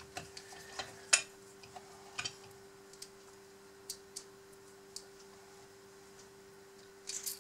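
Scattered light clicks and taps of small metal and plastic parts of an RC excavator's arm and motor housing being handled, with a screwdriver. The sharpest click comes about a second in, with a small cluster near the end, over a faint steady hum.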